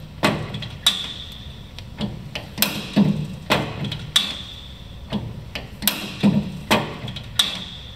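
Hex turret on a Warner & Swasey ram-type turret lathe being indexed by hand: repeated metallic clunks and clicks as the ram is run back and forth, with a short ringing click roughly every three seconds as the turret locks into its next station.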